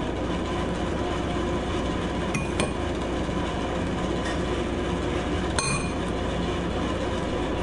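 Steady mechanical hum with a faint hiss, with a few light clinks: two close together about two and a half seconds in, one more near six seconds.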